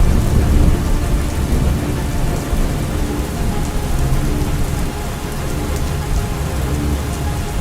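Steady heavy rain with a continuous low thunder rumble beneath it.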